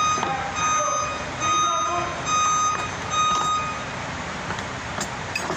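Vehicle reversing alarm beeping a single steady tone, a little more than one beep a second, stopping about four seconds in. A few sharp clicks come near the end.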